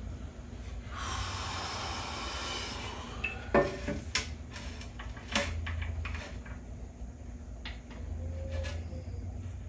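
Steel oil pan from a Turbo 350 automatic transmission, full of fluid, being handled and set down: a rushing, shushing noise for about two seconds, then a scatter of sharp clanks, knocks and scrapes of the sheet-metal pan.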